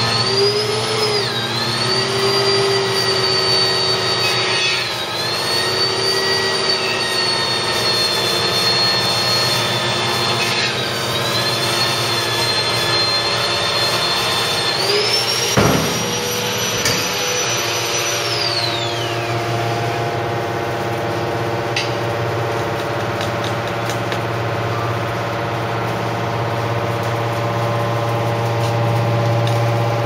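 Hydraulic scrap-metal baler running while compacting mattress springs: a steady motor-and-pump hum under a high whine that dips briefly three times. About halfway through a sharp clunk sounds; the whine then rises, holds for a few seconds and glides down and away, leaving the steady hum.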